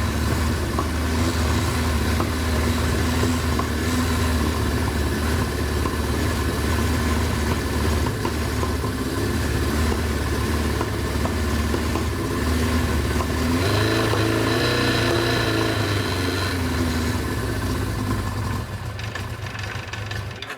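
1983 Suzuki GS1100GK's inline-four engine idling steadily, then revved briefly about two-thirds of the way through before settling back, to raise the stator's output for a charging-system test.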